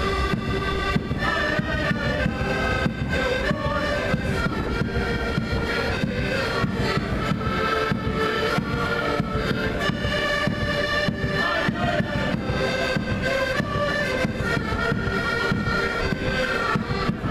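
Several accordions playing a Portuguese folk tune together in sustained chords and melody, over a regular percussive beat.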